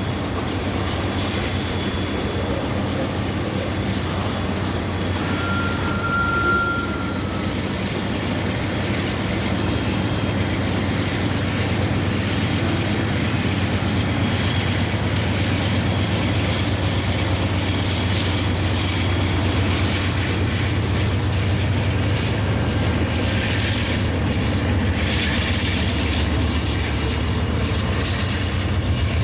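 Freight train rolling past: steady rumble of the cars and the hum of mid-train diesel locomotives. A brief high squeal comes about six seconds in, and sharper clatter near the end.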